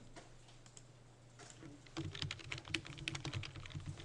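Typing on a computer keyboard: a few scattered keystrokes, then a quick run of keystrokes about halfway through as a short name is typed in.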